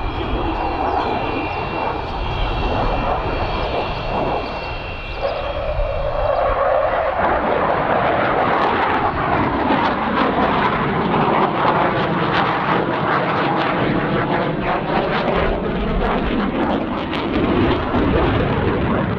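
Saab 35 Draken's afterburning turbojet during a flying display. A high whine fades in the first few seconds, then the sound swells into a loud, crackling jet rush with slowly sweeping tones as the aircraft passes on afterburner.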